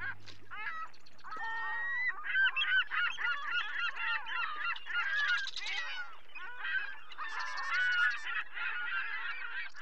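A flock of birds calling, many overlapping calls at once.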